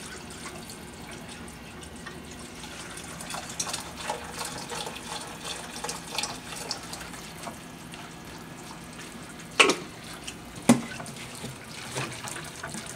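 Chicken broth being poured into a saucepan of butter-and-flour roux while a silicone whisk stirs it: a steady liquid sound with light scraping and small ticks. About three-quarters of the way through come two sharp knocks a second apart.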